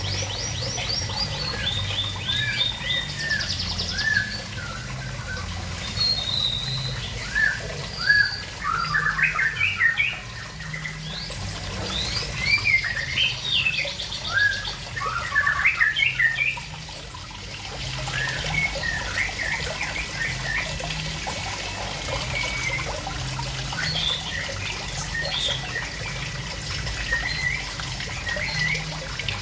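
Small songbirds chirping in many short, quick calls, busiest in the middle, over a low trickle of water from a pond.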